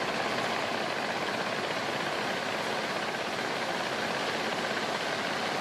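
Mine machinery running steadily: an even engine drone with a hiss over it, with no blasts or other sudden sounds.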